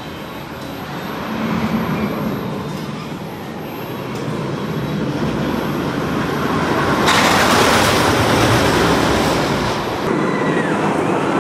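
Roller coaster train running along its track: a rumble and rush of wheels that builds, is loudest about seven seconds in, and keeps going near the end.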